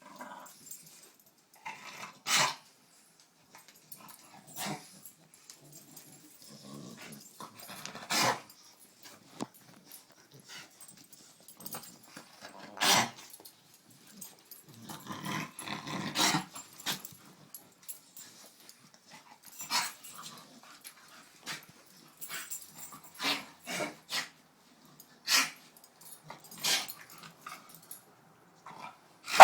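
Staffordshire bull terriers growling in play, in short bursts every couple of seconds, with a few sharper bark-like yelps among them.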